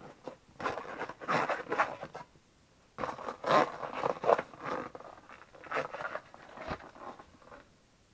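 Hunter gloss black rubber wellington boot being flexed and rubbed by hand, its rubber squeaking and scraping in two spells, the second longer.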